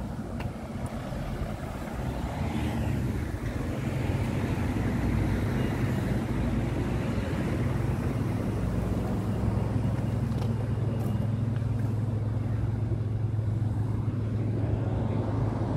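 A police car's engine idling with a steady low hum. It grows louder over the first few seconds, then holds steady.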